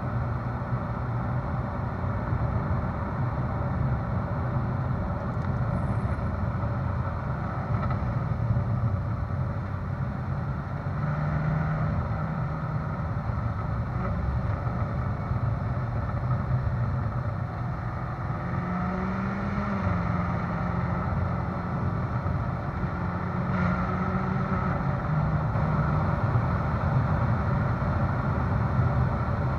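Ferrari California's V8 exhaust, heard from the rear of the car, running steadily at a low cruising pace, with small changes in engine note and a brief rise about two-thirds of the way through. Tyre and road noise from a rough road surface runs underneath.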